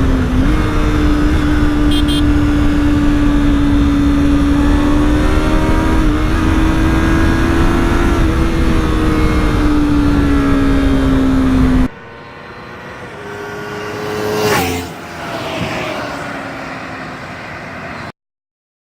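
Yamaha R3's parallel-twin engine running at a steady high engine speed, the note holding with slight rises and dips over a heavy wind rumble. About twelve seconds in it cuts to a quieter fly-by: the bike approaches, passes at speed with a sharp drop in pitch, and fades away before the sound cuts off.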